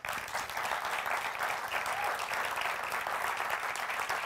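Audience applauding: many people clapping, breaking out all at once.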